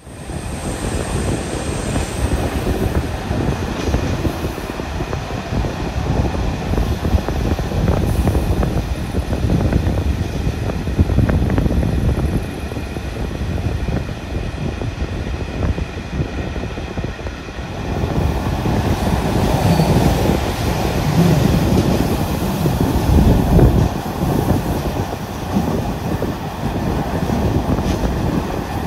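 Ride noise of a moving passenger railway coach heard at an open compartment window: a steady rumble of wheels on the rails, with scattered light clicks from the track. About two-thirds of the way through, the rumble grows fuller.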